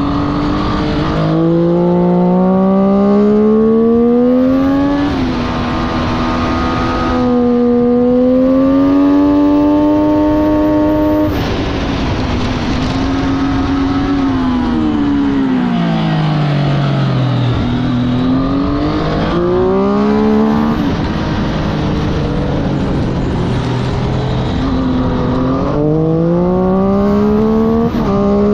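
Motorcycle engine lapping a circuit at speed: the pitch climbs hard through the gears, stepping down at each upshift. It falls away slowly under braking and downshifts in the middle, then rises again on two more bursts of acceleration.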